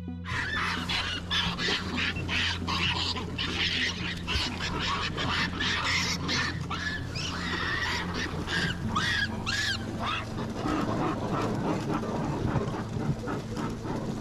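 A troop of Japanese macaques (snow monkeys) calling, with many short overlapping squeals and chirps, and sharp clicks scattered through.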